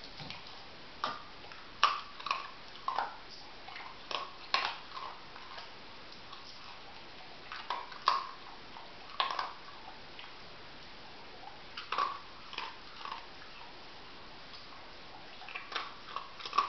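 A Kooikerhondje sniffing at and picking up pieces of kibble from a tiled floor: short, irregular sniffs, snuffles and clicks with quiet gaps between them.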